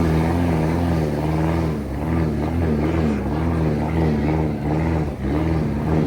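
Vehicle engine running under way, its pitch wavering up and down about once a second as the throttle or speed changes.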